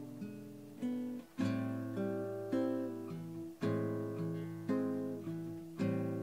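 Background music: acoustic guitar playing chords, a new strum about once a second, each ringing out and fading before the next.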